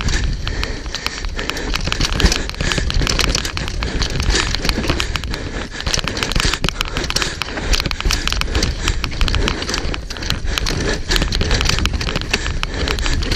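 Specialized Demo 8 downhill mountain bike descending a rocky dirt trail, heard from a camera mounted on the bike or rider: tyres rolling over dirt and rock with rapid clicks and knocks from the bike rattling over the bumps, and a low rush of wind on the microphone.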